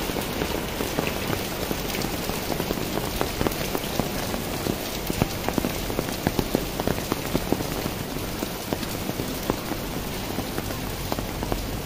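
Steady rain, with many separate drops striking the fabric of an umbrella held just overhead as sharp close taps over the even hiss of the downpour.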